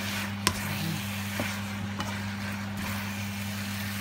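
Pasta, chicken and mushrooms being tossed and stirred in a nonstick frying pan with a wooden spatula over a low sizzle. The spatula knocks sharply on the pan about half a second in, with lighter taps later; a steady low hum runs underneath.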